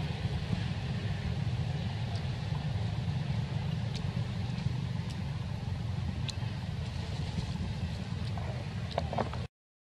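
Steady low outdoor background rumble with a faint hiss, broken by a few faint short high clicks; the sound cuts out abruptly just before the end.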